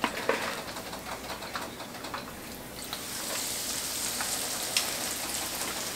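Hot oil in a wok crackling lightly, then breaking into a steady, louder frying sizzle about three seconds in as a breaded lobster tail is lowered into it.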